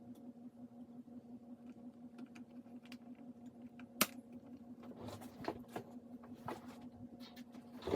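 Irregular clicks and light plastic clatter from the keyboard being worked on, with one sharp click about four seconds in and a burst of rattling clicks in the last few seconds, over a steady low hum.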